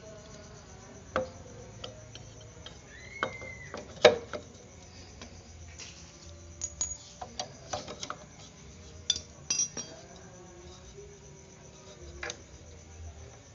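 Irregular metallic clinks and knocks as a scooter's front brake caliper and its mounting bolts are handled and fitted onto the fork over the brake disc. The loudest knock comes about four seconds in, and there are bunches of clicks a few seconds later.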